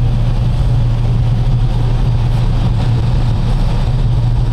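Semi truck's diesel engine running with a steady low drone, heard from inside the cab.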